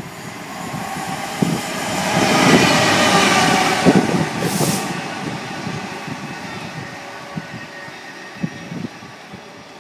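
British Rail Class 66 diesel locomotive, with its two-stroke V12 engine, passing through at speed on its own. The engine and wheel noise swell to a peak about three to four seconds in, with a short hiss near the peak, then fade as it moves away.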